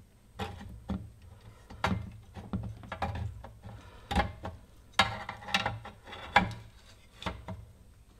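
Irregular sharp clicks and clacks of tools and wires being handled on a workbench, as power-supply leads are joined for soldering.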